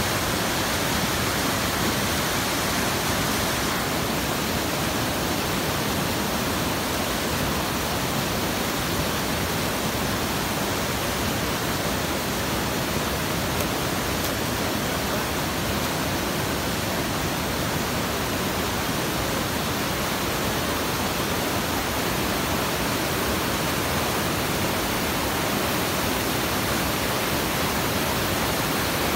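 Steady, even rush of white water cascading into a rocky plunge pool.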